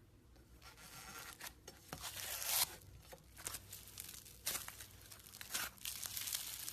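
Slime being stretched and squeezed by hand, giving off irregular crackling, tearing sounds that come in bursts, starting about half a second in.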